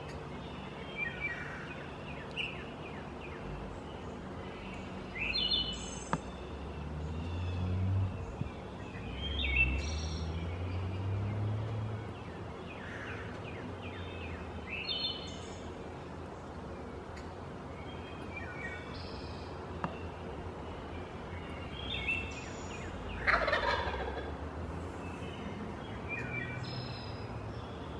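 Wild turkey tom gobbling once, a loud call falling steeply in pitch late on, as part of its strutting courtship display; small birds chirp on and off throughout.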